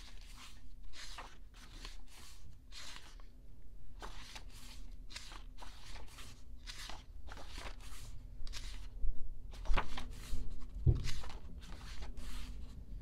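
Pages of a paper photo book being turned one after another, each turn a short papery swish. Around ten seconds in, a couple of louder bumps as the book is handled.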